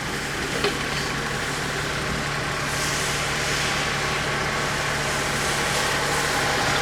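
An engine running steadily with an even low hum, slowly growing a little louder.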